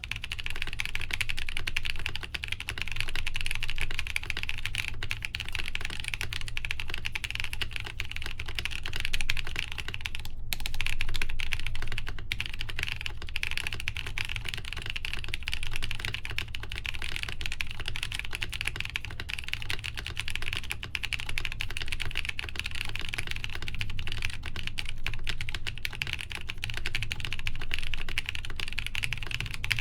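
Fast, continuous typing on a Lin Design Studio BOX 75 mechanical keyboard with lubed Gazzew U4T tactile switches, a full polycarbonate plate and Cherry-profile PBT keycaps, no foam in the plate or case. It starts right away and breaks briefly about ten seconds in.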